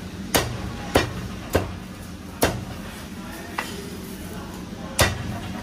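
Heavy cleaver chopping through poached white cut chicken onto a thick round wooden chopping block. There are six sharp chops at uneven spacing: four in the first two and a half seconds, a lighter one about three and a half seconds in, and a last hard one near the end.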